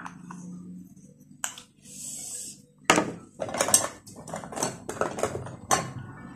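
Rummaging through a makeup bag: cosmetic bottles and compacts knock and clatter against each other in a quick run of sharp clicks, after a single click and a short rustle.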